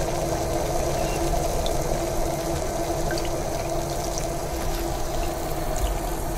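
Small pot of mussel soup bubbling at a steady boil, with a steady hum underneath, while a metal ladle scoops broth and pours it into a bowl with a few faint clinks.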